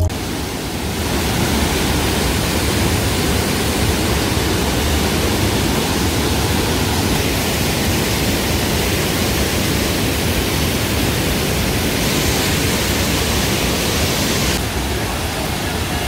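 Water pouring over a waterfall and through white-water rapids in a rocky mountain stream: a steady, loud rush. It turns a little quieter and duller near the end.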